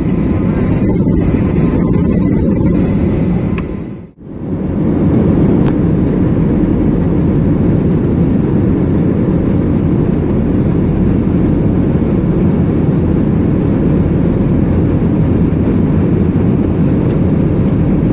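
Steady engine and airflow noise of a jet airliner, heard inside the cabin from a window seat over the wing. About four seconds in the sound dips away briefly at an edit, then returns as the same even, low cabin noise of the flight.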